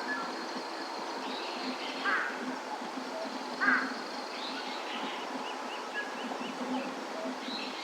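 Wild birds calling over a steady outdoor background hiss. Two loud, fluttering calls come about two and three and a half seconds in, then a quick run of short high chirps, with a thin steady high tone underneath for the first half.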